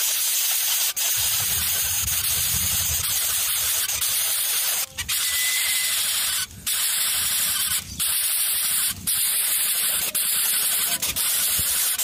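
A steady hiss that cuts out briefly about six times, with a faint low rumble in the first few seconds.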